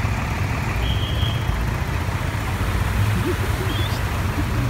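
Motor vehicles driving through floodwater on a street: steady engine noise with the rush and splash of water. Faint voices about three seconds in.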